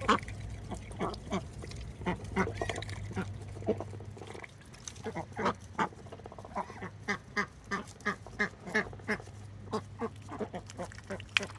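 Domestic ducks quacking repeatedly in short calls, which come faster, at about two to three a second, in the second half. A low hum underneath fades out a little before halfway.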